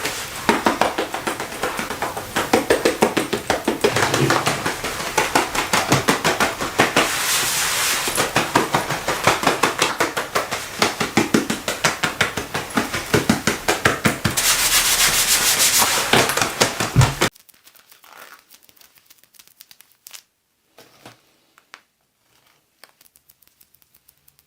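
Leather being rubbed and squeezed, giving a dense run of crackling, creaking rubs that stops suddenly about two-thirds of the way through, leaving only faint scattered ticks.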